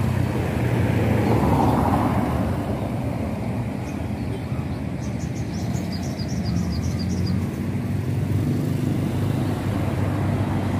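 Road traffic: vehicles driving past, one swelling past about two seconds in, over a steady low engine rumble. A quick run of high chirps comes about halfway through.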